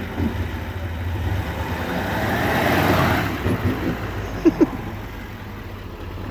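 L5P Duramax 6.6-litre V8 turbodiesel revving, the turbo's rushing whoosh building for about three seconds before the throttle is released. The turbo then flutters on lift-off, with two short, sharp chirps about a second and a half later, and the engine settles back to idle.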